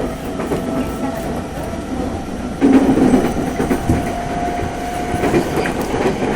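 Original unrenewed E217-series electric train under acceleration: its GTO-VVVF inverter and traction motor give a steady tone that rises slowly, over running noise and wheels clacking on the rails. The noise grows louder about two and a half seconds in.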